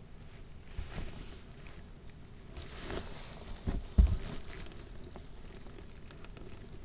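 Soft rustling and light knocks from the handheld camera being handled, with one louder, low thump about four seconds in.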